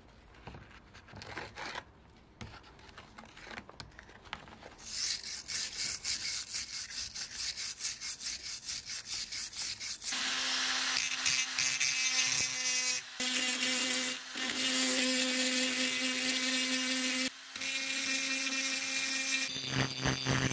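Quick, rhythmic scrubbing strokes, then a small handheld electric rotary tool runs with a steady hum from about halfway, its burr grinding rust off an iron axe head. The hum changes pitch near the end.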